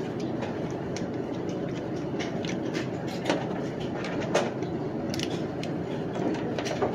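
Steady hum of indoor range ventilation, with a few light clicks and knocks of pistols and magazines being handled and loaded between strings of fire.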